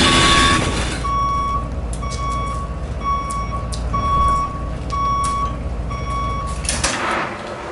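Vehicle reversing alarm beeping: a string of high, steady-pitched beeps over a low engine rumble. Both stop about seven seconds in with a short noisy clatter.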